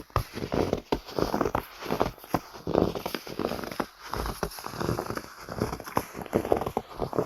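Footsteps crunching through snow at an unhurried walking pace, about one step a second, each step a grainy crunch that lasts most of a second.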